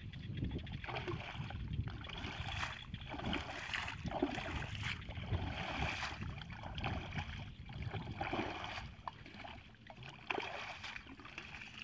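Muddy water splashing and gurgling in repeated surges as a plastic pipe is jabbed again and again into a soft mud bank, breaking it open so the water pours out.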